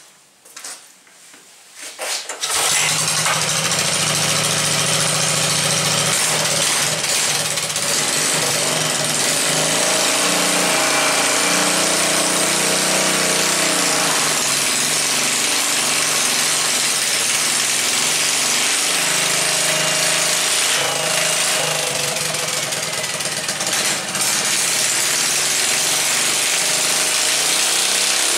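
Small single-cylinder 5-horsepower Kawasaki engine starting about two and a half seconds in and then running loud and steady, its speed rising and falling a few times in the middle. It is spinning the dyno's brake rotor through a belt with no brake load applied.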